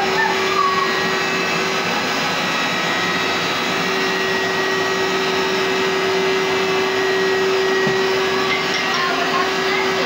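A Hoover SteamVac Widepath 9-amp carpet cleaner runs steadily as it is pushed over a rug, with a steady hum under the suction noise.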